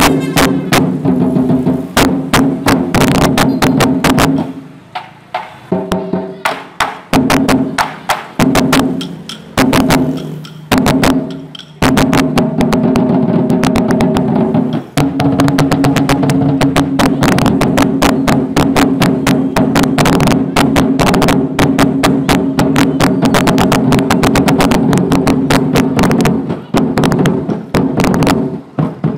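Lion dance percussion: several large barrel drums beaten with sticks, with a hanging gong ringing, in a fast dense rhythm. About four seconds in it thins into separate strokes with short pauses, and from about fifteen seconds it runs on as a steady dense roll.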